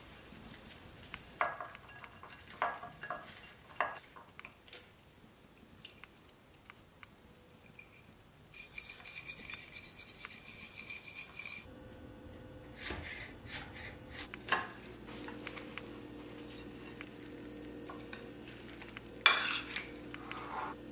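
Cutlery and small dishes clinking against ceramic bowls. First come a few sharp clinks, then a fork whisking a dressing of oil and lemon juice with a steady scrape for about three seconds, then a metal spoon tossing sliced cucumbers and knocking the bowl, with the loudest clink near the end.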